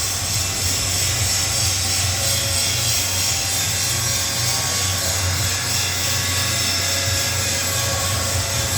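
Workshop machinery running steadily: a constant low hum under an even hiss.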